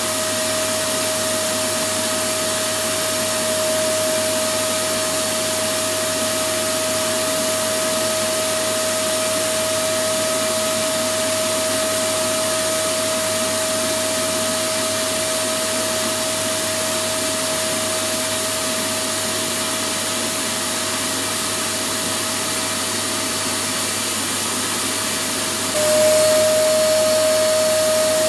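Electric vacuum cleaner running continuously: a steady rushing whine with a constant motor tone. Near the end it gets a little louder and the tone dips slightly in pitch.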